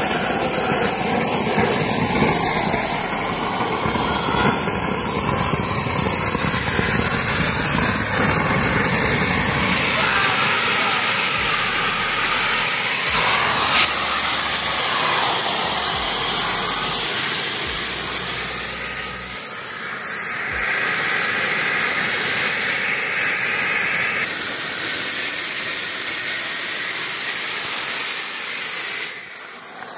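Small kerosene-fuelled model turbojet engine running hard, a loud rushing jet blast with a high turbine whine that rises in pitch over the first several seconds and then holds steady. The sound breaks off abruptly a few times and falls away sharply near the end.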